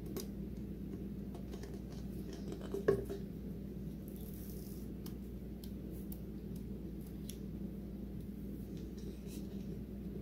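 Small handling noises of gluing paper pieces onto a plastic cup with a glue stick: faint rubbing and scattered clicks, with one louder knock about three seconds in, over a steady low hum.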